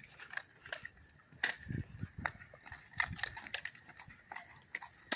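Quick, irregular footsteps with scattered short clicks and knocks, as players run and fire foam-dart blasters.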